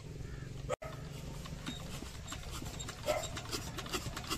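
Old Petter diesel engine clacking rhythmically over a steady low rumble as it is being started by hand, the clacks growing sharper and more frequent about three seconds in.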